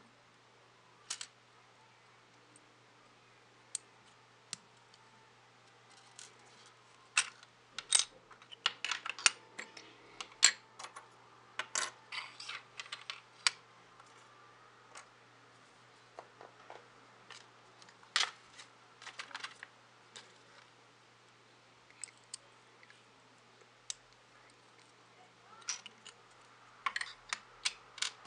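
LEGO plastic pieces clicking and clattering as they are handled, pulled apart and set down on a wooden tabletop: scattered sharp clicks, coming in several quick flurries with quiet gaps between.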